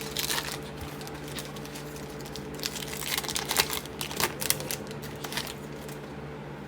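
A trading-card pack wrapper being torn open and crinkled, with the cards handled. The crackle comes in short clusters, busiest from about three to five and a half seconds in.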